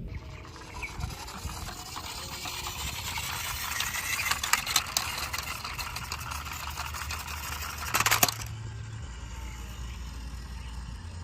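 Rattling and scraping with many small clicks, with a dense burst of sharp clicks about eight seconds in, then it dies down.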